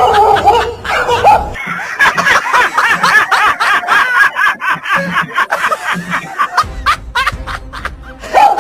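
Rapid, high-pitched laughter with music under it.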